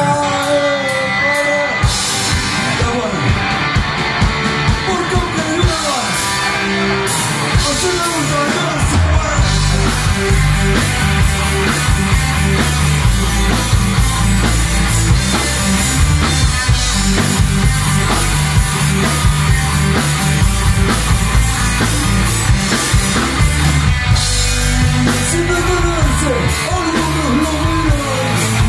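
Live rock band playing electric guitars, bass and drum kit, with a singer's voice over them; the heavy low end of bass and drums fills in about nine seconds in.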